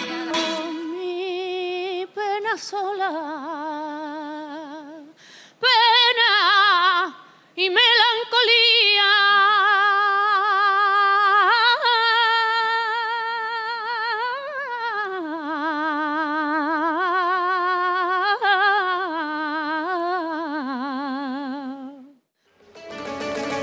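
A woman singing unaccompanied: a slow melody of long held notes with a wavering ornamented pitch, broken by a couple of short pauses early on, the song ending shortly before the end.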